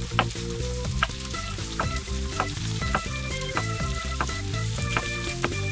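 Kitchen knife slicing button mushrooms on a wooden cutting board, a sharp tap of the blade about twice a second, over the steady sizzle of bacon frying in lard in a pan.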